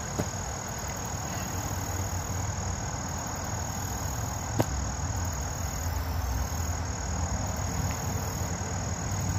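Steady high-pitched insect chirring over a low outdoor rumble. Two brief sharp knocks cut through it, one just after the start and one about halfway.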